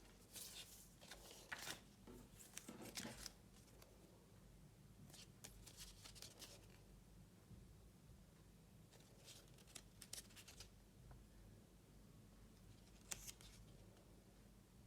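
Faint rustling and clicking of packaging being handled and opened, in four short clusters over a steady low hum.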